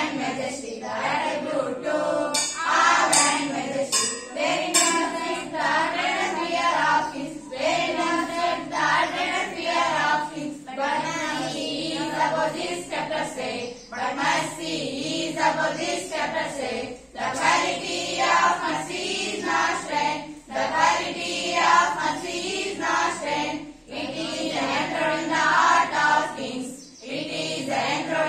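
A group of school students, girls and boys, singing a poem together in a choir, with short pauses for breath every few seconds.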